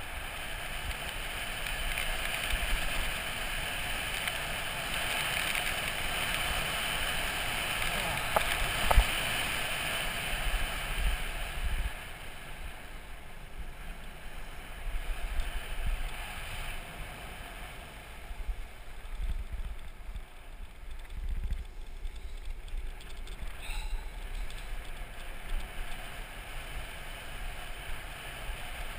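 Wind rushing over the microphone, with the hiss and rumble of wheels rolling fast on asphalt during a downhill skate run. It is louder for the first twelve seconds, then eases, with one sharp knock about nine seconds in.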